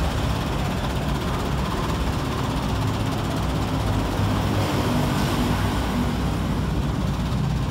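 Old medium bus's 1990s Mitsubishi diesel engine idling close by, a steady low rumble, with road traffic passing.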